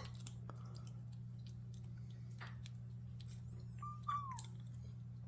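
A cat eating dry kibble makes faint, scattered crunching clicks. About four seconds in there is a brief small high sound made while eating. A steady low hum runs underneath.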